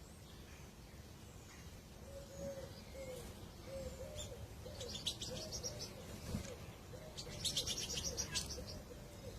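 Birds calling: a steady series of short, low, cooing notes about twice a second, with two bursts of rapid, high-pitched chirping over it.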